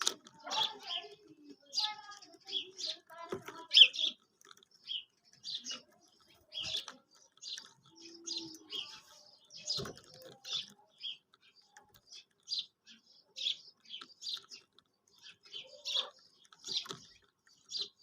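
Quail calling: short, high notes repeated in quick, irregular runs, the kind of recorded call used to lure quail into nets.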